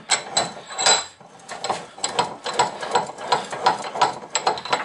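Central Forge bench vise being cranked shut on round stock: a steady run of metallic clicks and clanks from the screw and handle, about three a second.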